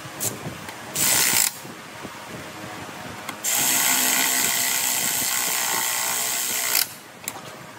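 A power tool running in two bursts: a short one about a second in, then a steady run of about three seconds.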